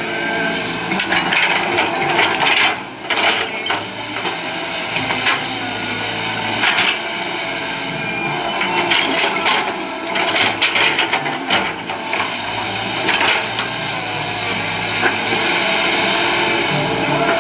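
Cat 312D hydraulic excavator digging: its diesel engine runs steadily under load, with repeated sharp clanks and knocks scattered through.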